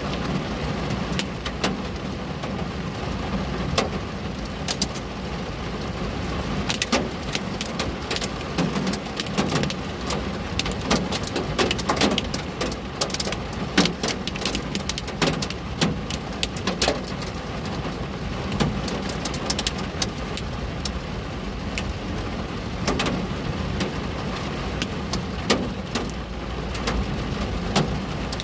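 Raindrops tapping irregularly on a window pane, many scattered ticks over a steady low rumble of rain.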